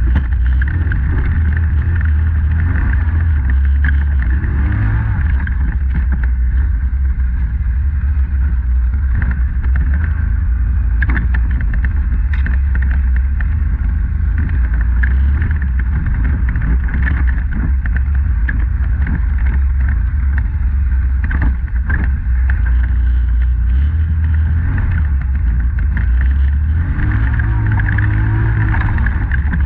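Polaris Sportsman 850 ATV's twin-cylinder engine running steadily under load as it is ridden along a rough trail. The engine note rises briefly about four seconds in and again near the end, with occasional short knocks.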